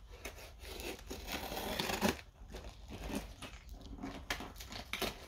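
A knife cutting through packaging in one long stroke over the first two seconds, followed by scattered crinkling and rustling of the wrapping.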